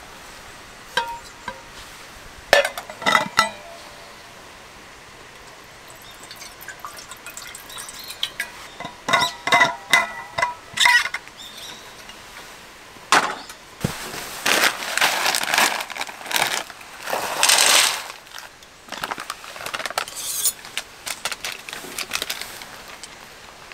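Metal cookware clinking: a frying pan is lifted off its hanger and set down on a stainless camp stove, with several sharp ringing clinks. Then liquid is poured from a stainless flask into the hot pan, hissing in a few bursts.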